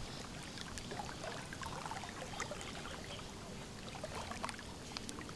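Small waves lapping at the lakeshore: a quiet, steady wash of water broken by many small, irregular splashes.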